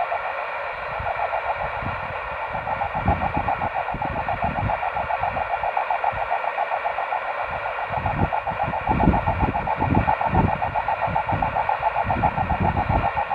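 10 GHz amateur radio signal received by rain scatter, heard from the receiver's speaker as a steady, rough, rapidly fluttering buzzy tone with the 'auroral sound' that scattering off rain gives. Irregular low rumbles run underneath.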